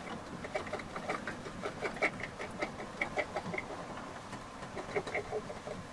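Hens clucking: an irregular run of short clucks, several a second.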